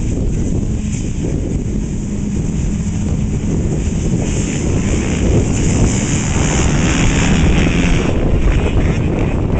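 A row of motocross dirt bikes revving at the starting gate, growing louder and brighter in the middle as they launch off the line. Wind is buffeting the microphone.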